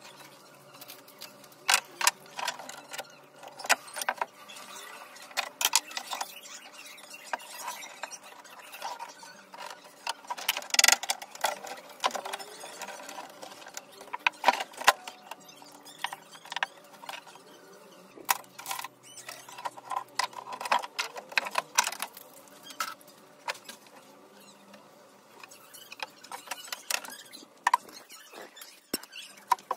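Irregular sharp clicks and light knocks, scattered and uneven, the loudest about eleven and fourteen seconds in, over a faint steady hum.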